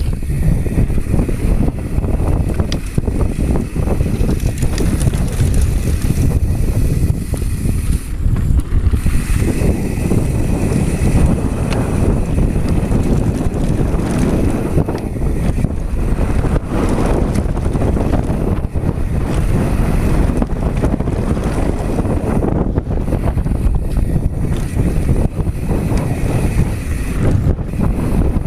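Wind buffeting the microphone of an action camera on a mountain bike riding fast down a dirt trail. Under the wind, tyres run over dirt and the bike rattles with a steady stream of small knocks from bumps.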